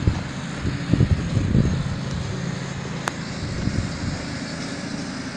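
A steady low engine hum from distant machinery or traffic, with low buffeting on the microphone in the first couple of seconds and a single sharp click about three seconds in.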